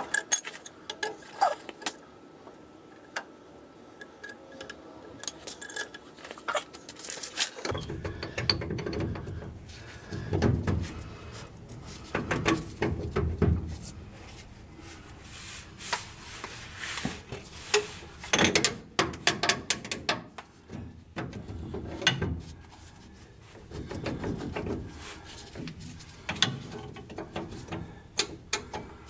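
Hand tools working on a truck's front leaf spring and axle: scattered sharp metallic clicks, then from about eight seconds in denser knocks and clanks with ratchet-like clicking.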